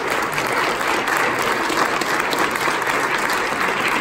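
Senators applauding: many people clapping in a steady, dense patter.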